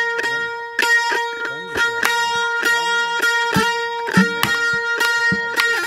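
Instrumental opening of a Haryanvi folk bhajan: a plucked string instrument is struck about three times a second over a steady ringing drone, with low booming notes that bend in pitch beneath it.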